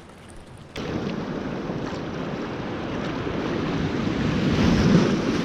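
Sea surf and wind buffeting the microphone: a steady rush of noise that starts abruptly under a second in and swells toward the end.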